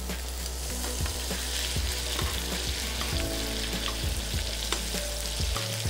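Beef fillet sizzling in foaming butter in a hot frying pan, with light clicks and scrapes of a spoon basting it.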